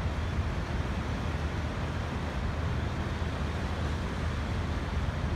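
Horseshoe Falls at Niagara: the steady, unbroken rush of a huge volume of water pouring over the brink, heaviest in a deep low rumble.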